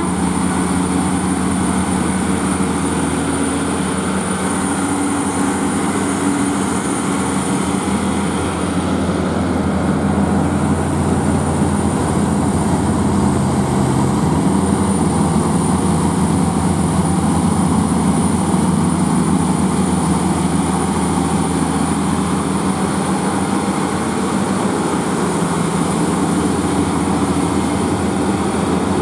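Heavy diesel truck engine running steadily under load, a loud low drone with a thin high whine, its pitch shifting about halfway through.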